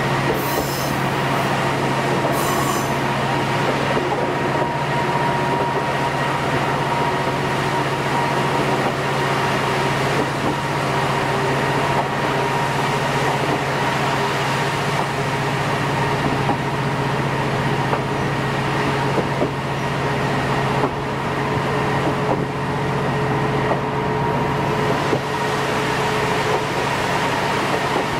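Diesel railcar running along the line, heard from inside the carriage: a steady engine drone with a whine that rises slightly in pitch over the first dozen seconds and then holds, and occasional faint clicks from the wheels.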